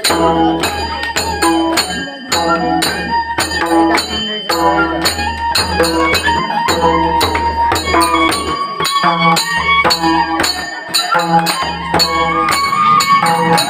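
Nepali folk dance music: a madal hand drum played in a steady, fast rhythm, with a melody line over it.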